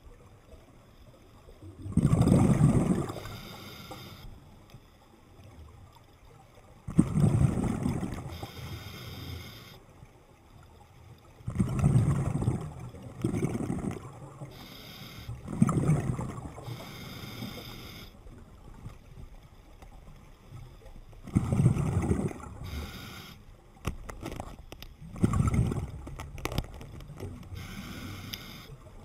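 Scuba diver's exhaled air bubbling out underwater in loud rushing bursts about every four to five seconds, in the rhythm of breathing, with quieter water sound between them.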